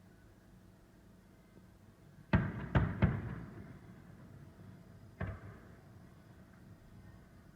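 Fireworks shells bursting: three booms in quick succession, each followed by a rolling rumble, then a fourth, weaker boom a couple of seconds later.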